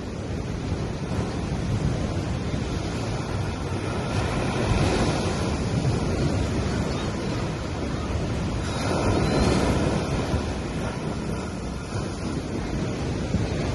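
Gentle sea waves washing onto a sandy beach, swelling louder twice as waves break, with wind on the microphone.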